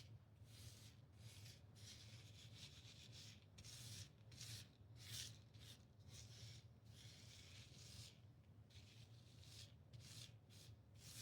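A brush scrubbing loose hotfix rhinestones back and forth over a rhinestone template to push them into its holes: faint, repeated swishing strokes at an uneven pace.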